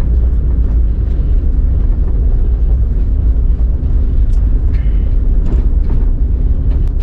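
Steady low rumble of a car on the move, with a few faint light clicks.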